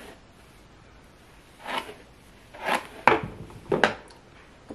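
Four short rustling and knocking noises from small objects being handled, the two sharpest about three and almost four seconds in.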